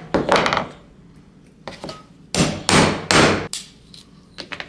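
Knocking strokes on a small piece of wood as it is cut off a larger piece: one loud stroke near the start, then three more in quick succession about two and a half seconds in.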